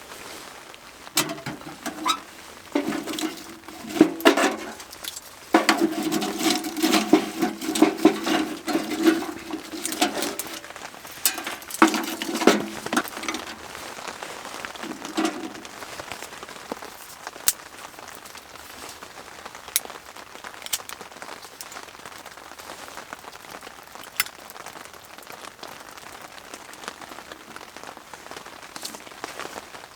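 Clinks and knocks of camp gear being handled through the first half, then a steady light patter of rain with scattered sharp drops ticking on the tent.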